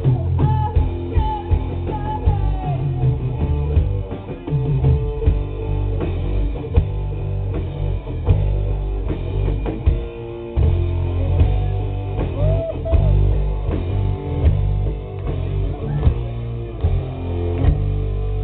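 Rock band playing live: electric guitar, bass guitar and drum kit, with a woman singing a few lines near the start and again about two-thirds through.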